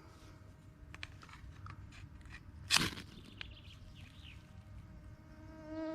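A ferrocerium rod (fire steel) struck once with a sharp scrape about three seconds in, with a few faint scratches and clicks around it. A faint steady insect buzz grows louder near the end.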